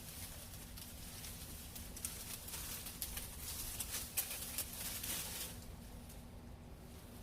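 Leafy tree branches and twigs rustling and crackling with irregular snaps, as cut branches are handled and broken into pieces.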